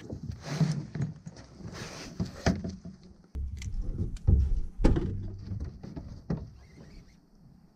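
Scattered knocks, clicks and thumps of handling on a fishing boat's deck, with a few heavier thuds about three and a half to five seconds in.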